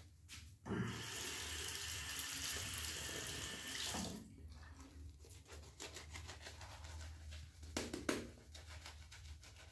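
Bathroom sink tap running for about three seconds, then turned off. A couple of short knocks follow about eight seconds in.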